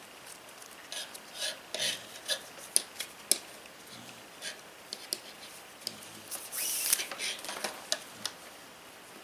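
550 nylon paracord being worked through the bracelet's weave by hand: scattered short rustles and clicks, with one longer rasping rub of cord sliding through the knot about two-thirds of the way in.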